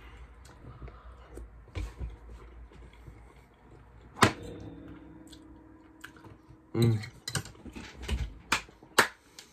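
A person eating a forkful of pasta with meat sauce: chewing and mouth noises with several sharp clicks.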